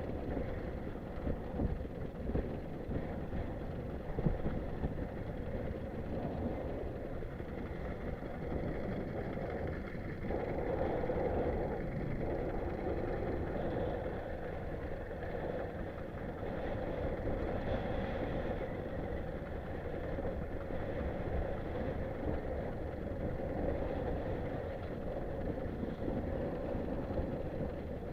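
Fishing boat's engine running steadily, under an uneven low rumble of wind buffeting the microphone.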